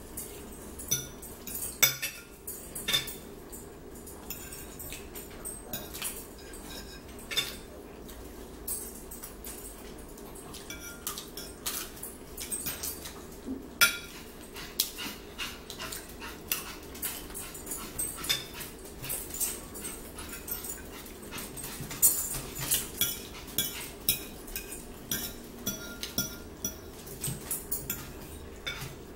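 Close-up eating sounds of a breakfast of eggs and bacon: chewing and mouth smacks, with forks clicking and scraping on plates in short sharp taps, over a steady low hum.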